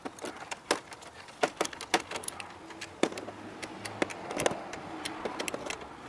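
Small ratchet wrench clicking in short, irregular runs while the nut on a car battery's terminal clamp is tightened.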